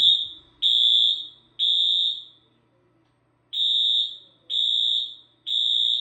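Wheelock AS-series fire alarm horn sounding the temporal-three evacuation pattern: three high-pitched electronic beeps about a second apart, a pause of about a second and a half, then three more.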